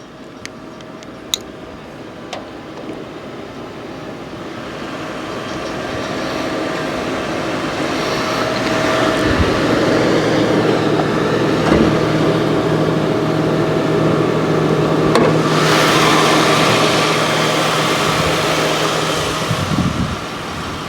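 Ford Crown Victoria Police Interceptor's 4.6-litre V8 idling with a steady hum, growing louder over the first several seconds and then holding. A few sharp clicks come early on, and a knock near the end.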